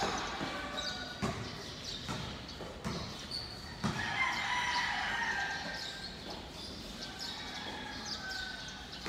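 A rooster crowing once, a long call starting about four seconds in, over a basketball bouncing on the court several times in the first four seconds.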